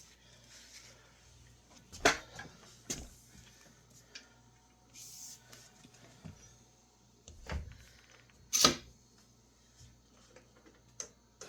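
Hard objects being handled on a work surface: a few scattered knocks and clicks, the loudest about three-quarters of the way through.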